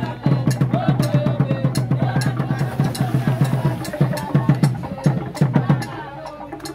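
Drums beaten fast and evenly, about six beats a second, with voices singing over them; the drumming stops about six seconds in.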